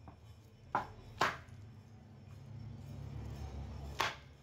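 Fibre motor housing of an Accurate CM4 marble cutter knocked against a wooden plank three times, about a second in, half a second later and near the end, to free the burnt field coil that has stuck inside the body.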